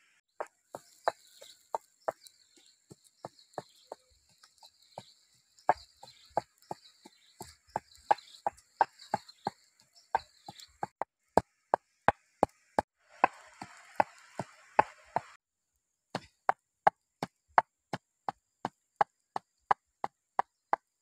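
Pestle pounding in a small mortar, sharp strikes that settle into a steady beat of about two to three a second, with a brief pause about three-quarters of the way through.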